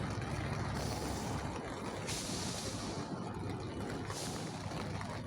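Steady low machine rumble with a hiss over it that grows stronger about two seconds in and eases near four seconds.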